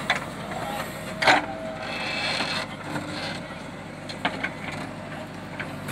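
JCB 3DX backhoe loader's diesel engine running steadily under hydraulic work as the backhoe arm swings and the bucket digs into loose soil. A sharp knock, the loudest sound, comes about a second in, with a few lighter knocks near the end.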